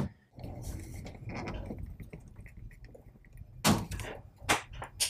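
Hands working a plastic part loose from the black track of a 3rd gen Toyota 4Runner's factory roof rack: low rubbing and scraping of plastic, then a few sharp plastic clicks and knocks in the second half.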